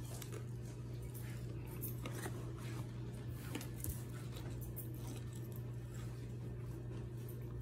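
A steady low hum with faint, scattered small clicks and rustles over it.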